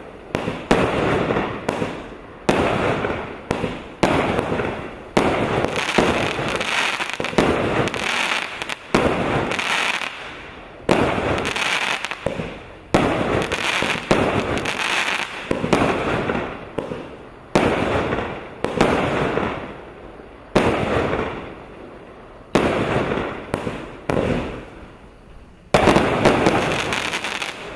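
A 49-shot, 1-inch (25 mm) firework cake firing shot after shot into the air, with stars bursting overhead. It goes roughly one shot every one to two seconds, and each is a sharp bang that trails away before the next.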